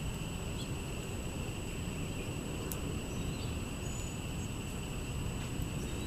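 Steady outdoor background noise, mostly a low rumble under a constant high hum, with a few faint, short songbird chirps: about half a second in, around three seconds and near five seconds. There is one sharp click a little before the three-second mark.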